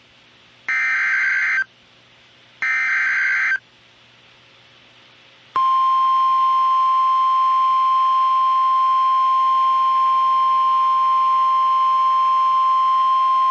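Emergency Alert System signal on NOAA Weather Radio. The last two of the three SAME header data bursts play, each a harsh digital screech about a second long and a second apart. About two seconds later the steady 1050 Hz weather radio alert tone starts, signalling that a new warning message is about to be read.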